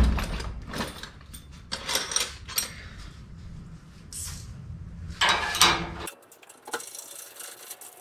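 Scattered clinks and knocks of tools and metal parts being handled, with a louder clatter about five seconds in; the sound cuts off abruptly near the end, leaving faint room tone.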